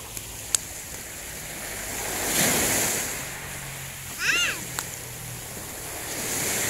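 Surf washing onto a beach in slow swells, rising about two and a half seconds in and again near the end. A short high-pitched squeal comes about four seconds in, and a sharp click about half a second in.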